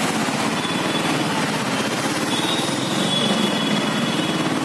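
Royal Enfield Bullet 350's single-cylinder engine running at riding speed, mixed with wind and wet-road tyre noise, heard from the pillion seat. A faint high whine runs through the middle.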